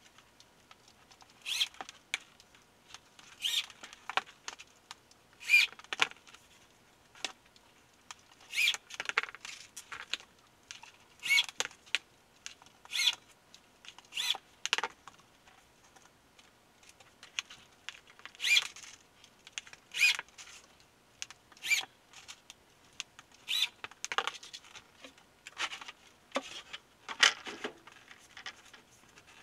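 A corded drill driving screws into a plywood floor panel in a run of short bursts, one every second or two.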